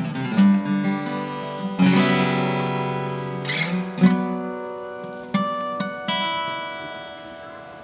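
Unamplified acoustic guitar, played by hand: a run of struck chords and picked notes, then a last chord about six seconds in, left ringing and fading away.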